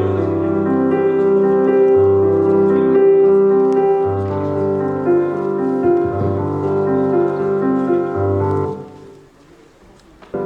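Instrumental background music with sustained, piano-like keyboard chords over a slow bass line. It fades out about nine seconds in, and music starts again suddenly at the very end.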